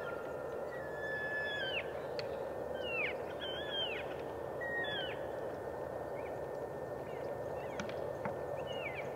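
Elk of a rutting herd calling: several short, high whistling calls that drop in pitch at the end, bunched in the first five seconds, with another faint one near the end.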